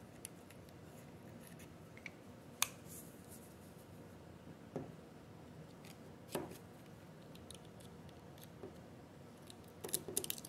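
Faint, scattered metal-and-plastic clicks of a utility knife being handled while its blade is changed, with a quick run of clicks near the end.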